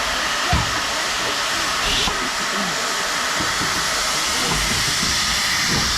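Steam locomotive giving off a loud, steady hiss of steam while standing at the station.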